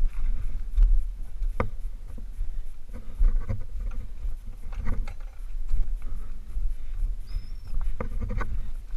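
Wind rumbling on a helmet camera's microphone, with scattered knocks and scrapes as a mountain bike and a wooden field gate are handled and the tyres roll over loose stones.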